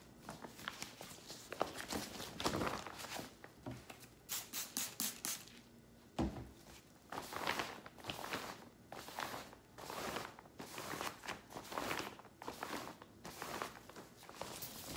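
Cloth wiped by a gloved hand over a non-woven reusable tote bag, making repeated brushing swishes against the fabric. A crisp rustle about four seconds in and a soft thump just after six seconds come as the bag is handled and turned over.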